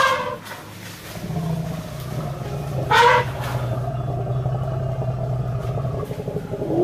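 Elephant calls imitated by a man: a loud call ending right at the start, a low steady rumble lasting about five seconds, and a short rising call about three seconds in. This is how the guide lures the herd towards him.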